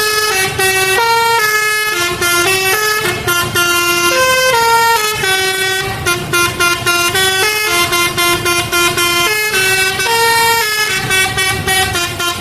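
Bus 'telolet basuri' horn, a set of electric air-horn trumpets playing a dangdut melody as a quick run of held notes that step up and down in pitch.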